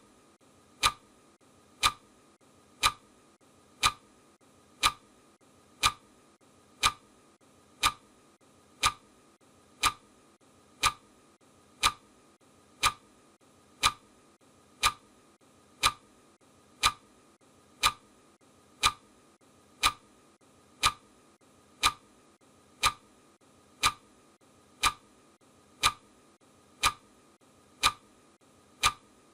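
Clock ticking sound of a countdown timer: sharp, even ticks at one per second, all the same strength.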